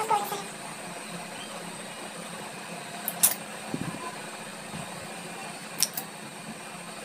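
Steady hum of an electric fan running in a small room, with two short sharp clicks, about three seconds and about six seconds in.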